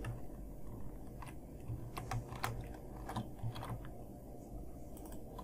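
A few scattered computer keyboard keystrokes, roughly one a second, over a steady low hum.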